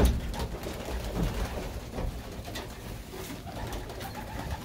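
Domestic pigeons cooing softly in a loft, after one sharp knock at the very start.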